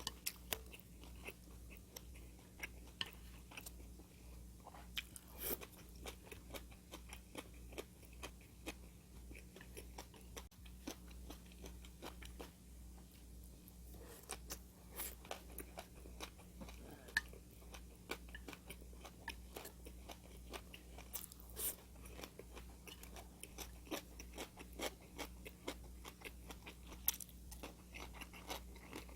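Close-miked chewing and biting of food, with frequent crisp, irregular crunches.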